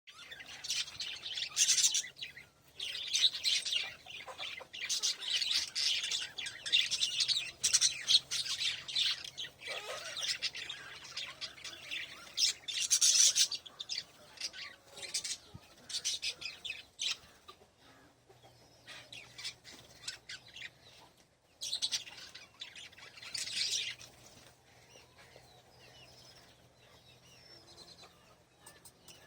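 Small pet parrots chirping and chattering busily, with many overlapping high calls that thin out and grow quieter over the second half.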